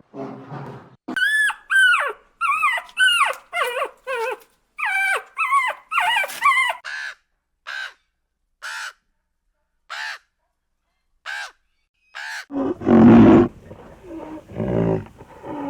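An animal giving a rapid run of high, yelping calls that thin out to single calls about once a second, followed about twelve seconds in by a loud, deep roar.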